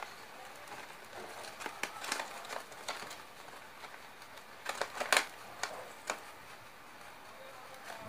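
Scattered soft clicks and paper crinkles, bunched about two seconds in and again, loudest, about five seconds in, as young parakeets shift about on newspaper lining a plastic basket.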